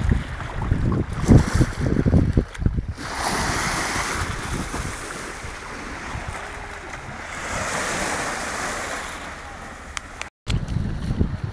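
Wind buffeting the microphone, then small waves washing in over a shallow sandy shore as a smooth hiss that swells twice and fades. The audio briefly cuts out near the end, then the wind buffeting returns.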